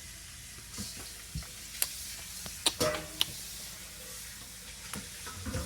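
Scattered light clicks, taps and scraping of a spoon and small containers as food colouring is mixed into baking soda, with sharper clicks a couple of times near the middle.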